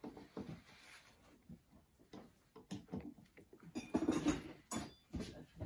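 Screwdriver driving screws into the metal top of a sailing winch during reassembly: scattered soft clicks and scrapes of metal on metal, louder for a moment about four seconds in.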